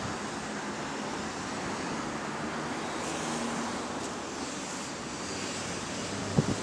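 Bus running, heard from inside the passenger saloon: a steady mix of engine, drivetrain and road noise with a faint low hum, and a short knock near the end.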